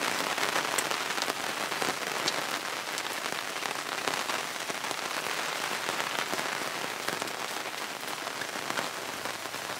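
Steady heavy rain coming down, a dense even hiss with the tap of single drops here and there.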